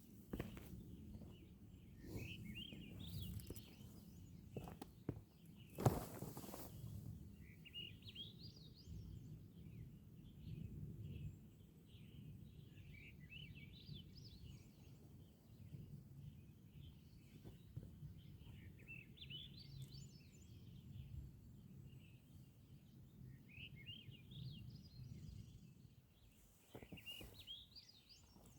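A songbird singing the same short rising phrase over and over, every five or six seconds, over a low steady rumble, with one sharp knock about six seconds in.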